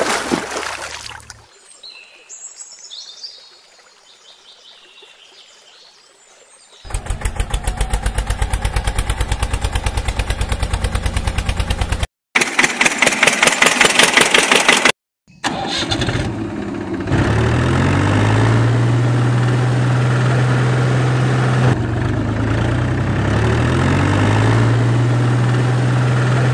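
Tractor engine sound effect: after a quiet stretch, an engine chugs in a steady rhythm of about seven beats a second, then runs louder and faster for a few seconds, then settles into a steady low drone.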